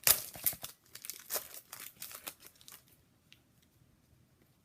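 Wrapper of an Upper Deck hockey card pack being torn open and crinkled, a rapid run of crackles over roughly the first two and a half seconds, followed by a few faint ticks.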